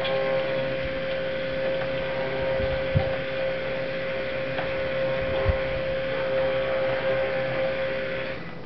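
Electric stick blender running steadily in a plastic bucket of cold process soap batter, a steady motor hum, with a dull knock twice and the motor cutting off just before the end.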